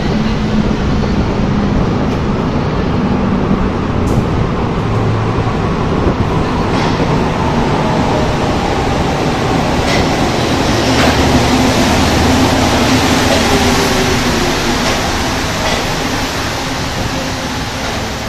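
Rubber-tyred metro train approaching through the tunnel and pulling into the station. A steady rushing noise grows loudest a little past the middle and then eases, with a faint whine falling in pitch and a few sharp clicks.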